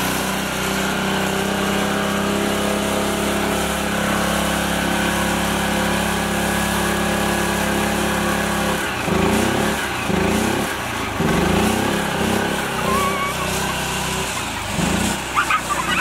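Small mini tractor engine running steadily, then from a little past halfway its revs rise and fall in repeated surges about once a second as it pulls through mud towing a load.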